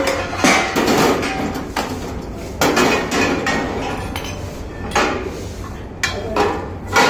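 Steel tubes and brackets of a mini crane stand clanking as they are laid on the steel platform of a weighing scale: about six separate metal clanks at uneven intervals, each ringing briefly.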